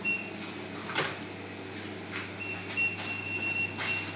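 Short, high electronic beeps of a calculator's keys being pressed, one at the start and a quick run in the second half, with a few sharp clicks of small items set down on the counter. A steady low hum runs underneath.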